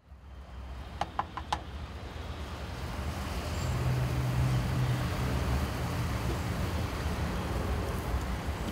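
Steady street-traffic rumble around a roadside food stall, with three quick metallic clinks about a second in.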